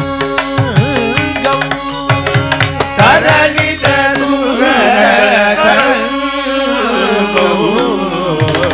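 Carnatic-style devotional singing of an ashtapadi by male voices, the melody sung on long ornamented vowels that waver up and down, heaviest from about three seconds in. A mridangam plays quick rhythmic strokes beneath it, over a steady held drone.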